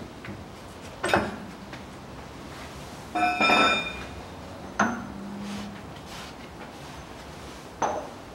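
Steel socket tools clinking as the extension bar and socket are pulled off a hub nut and set down: four separate knocks. The loudest, about three seconds in, rings briefly like struck metal.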